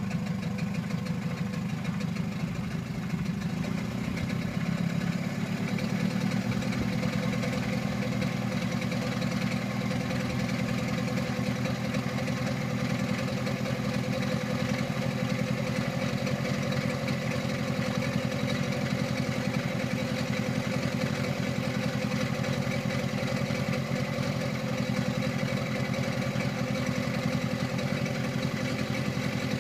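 2006 Mercury 15 hp outboard motor idling steadily from cold, its leg in a water-filled bin. The engine is still warming up, with the thermostat not yet open.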